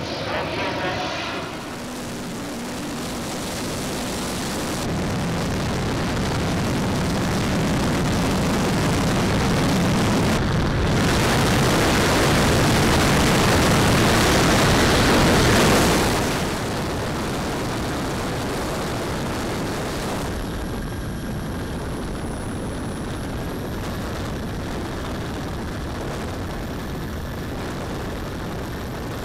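Giant-scale RC Vickers VC-10 model's four Wren Super Sport model turbines and the rush of air, heard from a camera mounted on the airframe. The rushing sound builds to a peak about halfway through, then drops suddenly. After that it runs steadier with a thin high turbine whine that dips briefly and comes back up.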